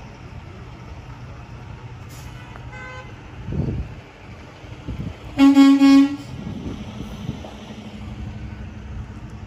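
A vehicle horn honks once, loud and steady for under a second, a little past the middle, over a steady low rumble. A fainter short beep sounds about three seconds in.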